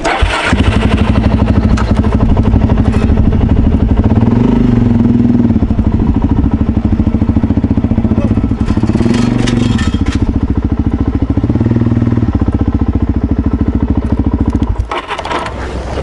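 Suzuki DR-Z400SM's single-cylinder four-stroke engine starting just after the beginning, then idling and running with a few rises in revs. Near the end it gives way to a rushing noise.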